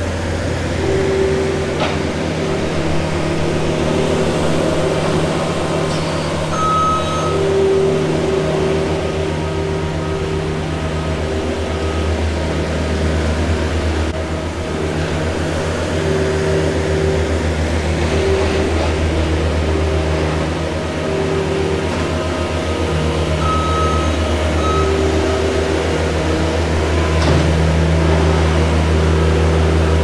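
New Holland L218 skid steer's diesel engine running steadily while it works the shed floor. A few short, high beeps sound over it.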